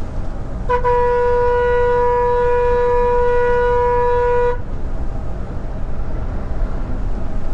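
A single long, steady horn blast of about four seconds from the Volvo bus, sounded as it closes on a slower bus to overtake it, over the steady rumble of the bus's engine and tyres heard from the cab.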